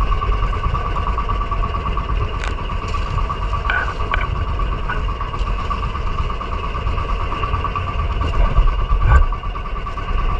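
Small fishing boat's engine running steadily, with a low rumble that swells briefly about nine seconds in.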